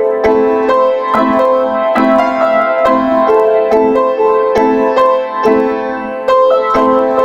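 Piano music, a calm melody with notes struck about twice a second.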